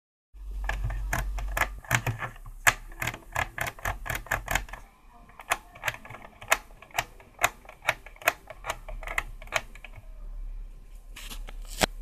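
Plastic slide and push-button switches on a portable AM/FM radio being flicked back and forth by hand, a string of sharp clicks at about four a second that thins out after about five seconds, over a steady low hum. The switching works freshly injected kerosene into the switch contacts to clean them.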